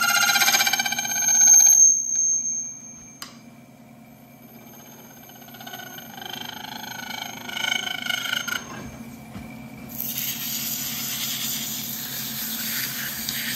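A hand-held turning tool cutting solid brass spinning on a wood lathe, the metal ringing with high, warbling tones in two spells: at the start and again from about five to nine seconds in. About ten seconds in, a steady hiss of abrasive rubbing on the spinning brass takes over.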